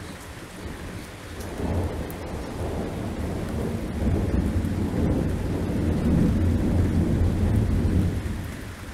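Thunder rolling over torrential rain: a deep rumble that builds about a second and a half in, stays loud for several seconds, and dies away near the end, with the rain's steady hiss throughout.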